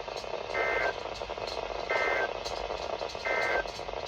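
Emergency Alert System (SAME) end-of-message code from a radio: three short, harsh digital data bursts about 1.4 seconds apart over radio hiss, marking the end of a severe thunderstorm warning broadcast.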